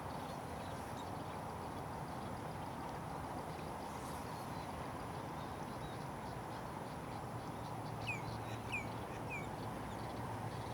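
Steady outdoor background noise, with three short falling chirps, like a small bird's, a little after the middle.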